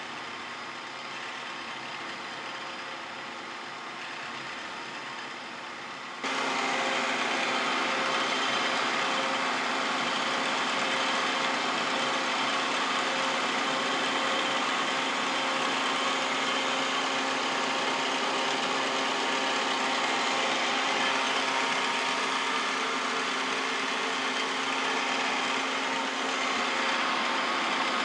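Vertical milling machine spindle running with a 7/16-inch four-flute carbide end mill, cutting a keyway slot in a metal shaft. About six seconds in, the sound jumps abruptly louder and then stays steady as the cutter works through the cut.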